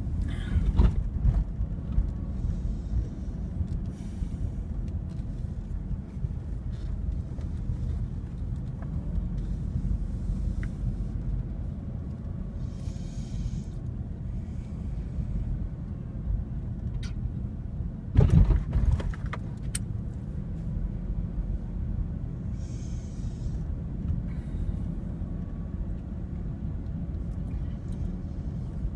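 Car driving slowly, heard from inside the cabin: a steady low rumble of engine and tyres, with a couple of louder thumps just after the start and about two-thirds of the way through.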